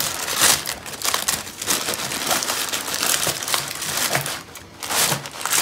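Paper lining a woven bamboo sticky-rice basket crinkling and crumpling in irregular bursts as it is folded and pressed around steamed sticky rice.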